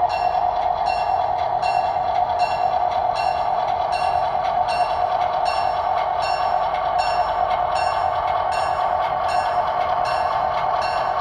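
Model diesel locomotive's sound system playing a steady engine drone through a small speaker, with its bell ringing evenly at about two strikes a second.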